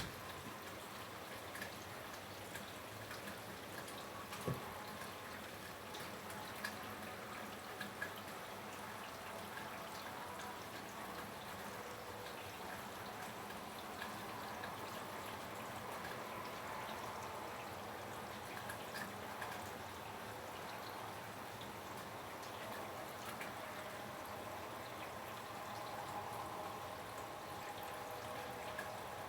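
Steady rain falling with water dripping, and a few sharper drips in the first eight seconds.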